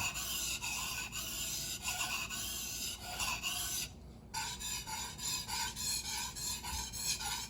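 Steel knife blade being stroked over a wet 400-grit Japanese water stone, a steady gritty scraping that swells and fades with each pass. It breaks off briefly about four seconds in, then carries on in quicker, shorter strokes.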